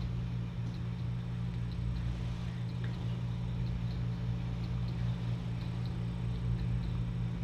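Faint, irregular small wet clicks of kittens eating soft wet food, over a steady low electrical hum.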